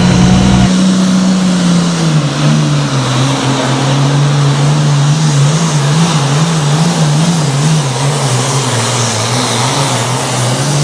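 John Deere Super Farm pulling tractor's turbocharged diesel engine running hard under load on the pull. Its deep note sags a little about two seconds in, then wavers up and down for a couple of seconds.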